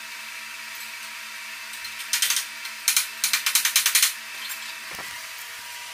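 Hand ratchet clicking in short bursts as a bolt on the Jeep CJ7's front fender is worked, the fastest run of clicks near the middle, over a steady background hum.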